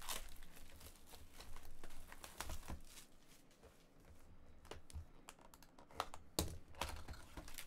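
Small clicks and taps of fingers handling a shrink-wrapped trading card box. Near the end a box cutter scrapes and slices through the plastic wrap, with a denser run of clicks.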